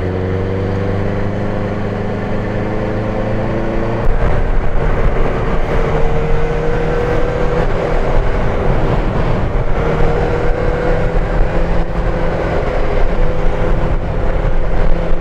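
Benelli TNT600 inline-four engine running under way, its pitch climbing slowly. From about four seconds in, heavy wind rumble buffets the microphone.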